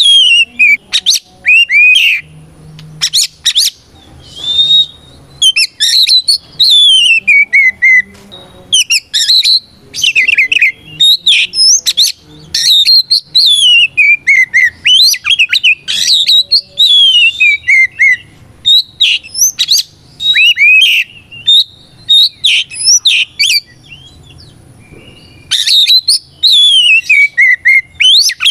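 Oriental magpie-robin (kacer) in full, vigorous song: a varied run of clear whistled phrases, many sliding down in pitch, broken up by quick chirps and sharp notes, with a short pause a few seconds before the end.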